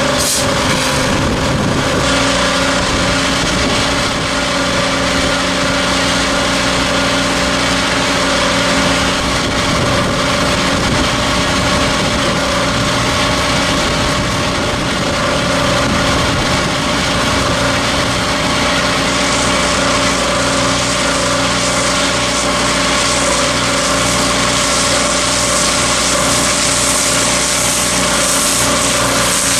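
Hydroseeder's engine running steadily as it drives the slurry pump. The hiss of mulch slurry spraying from the hose nozzle rises in the last third.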